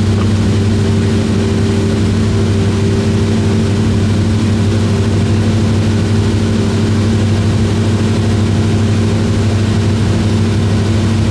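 Cessna 172's piston engine and propeller droning steadily in flight, heard inside the cabin as an unchanging low hum over a noisy rush.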